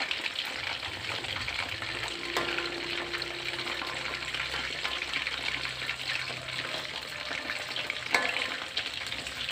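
Crispy-coated chicken pieces frying in hot oil in a wok, with a steady crackling sizzle. A metal spatula stirs and turns the pieces, knocking sharply against the wok twice, about two and a half seconds in and again near the end.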